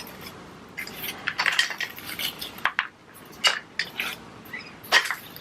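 Irregular light knocks, clicks and rustling of small decorative objects and plants being moved around in a planter by hand.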